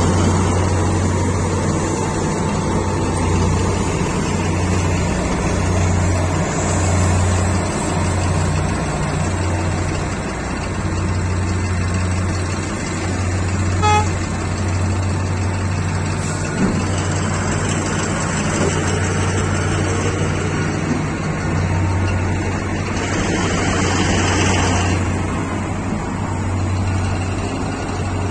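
Large mining diesel engines of a Caterpillar 777D haul truck and a Komatsu PC1800 hydraulic excavator running under load, a steady low drone that swells and eases. About halfway through comes one short horn toot, and a few seconds before the end a brief burst of hiss.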